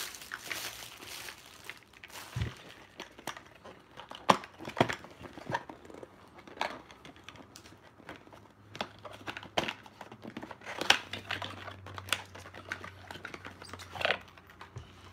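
Plastic packaging crinkling and rustling as a product is unwrapped by hand, with scattered sharp clicks and taps from handling and opening a sunglasses case.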